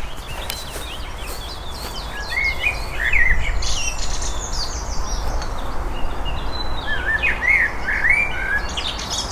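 Songbirds singing and chirping in quick runs of short rising and falling notes, busiest from about two seconds in.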